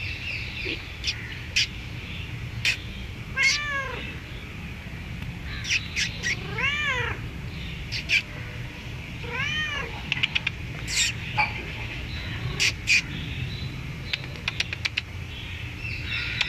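Domestic cat meowing three times, a few seconds apart, each meow rising and then falling in pitch. Short sharp clicks come and go between the meows over a steady low hum.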